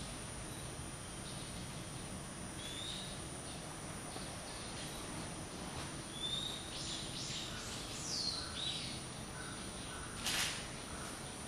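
Birds chirping outdoors: a few short calls that glide up or down, clustered in the middle, over a steady high hiss. About ten seconds in there is a single louder, sharp sound.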